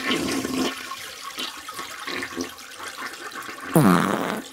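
A toilet flushing: a rush of water, then about three and a half seconds in a short, loud gurgle that falls in pitch, ending just before the next words.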